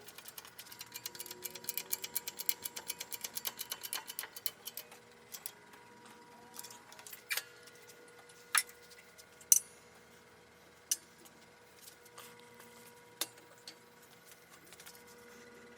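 Hand ratchet wrench clicking rapidly and evenly for about five seconds, then a handful of separate sharp metal clinks of tools and parts.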